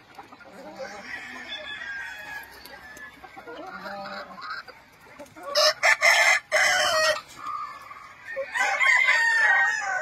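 Gamefowl roosters crowing, loudly about halfway through and again near the end, with hens clucking softly in between.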